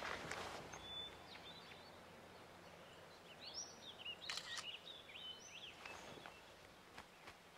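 Faint outdoor forest ambience with birds chirping, a few short chirps and trills in the middle. A soft rustle comes right at the start.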